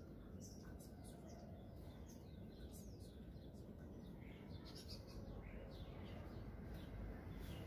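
Small birds chirping faintly: many short, high, falling chirps in quick succession, over a low, steady background rumble.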